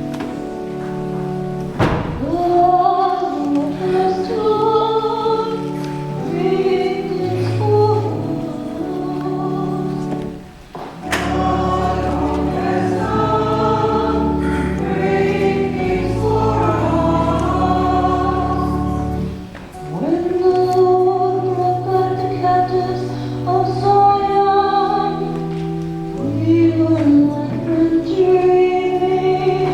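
Choir singing with organ accompaniment: held organ chords under the voices, with short breaks between phrases about 11 and 19 seconds in.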